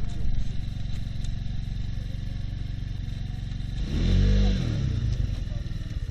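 Small vehicle engine idling steadily, revved once about four seconds in, its pitch rising and falling back to idle.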